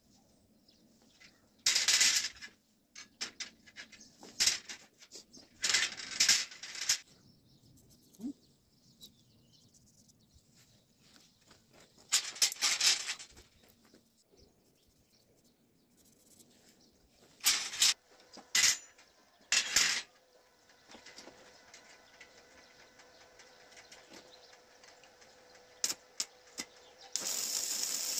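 Arc welding on steel bars: the arc crackles in several short bursts of about a second each, with a longer steady burst near the end.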